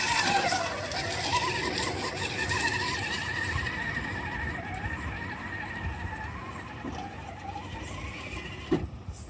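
FTX Kanyon radio-controlled rock crawler's electric motor and drivetrain whining, rising and falling in pitch as the throttle is worked over the rocks. There is a sharp knock near the end.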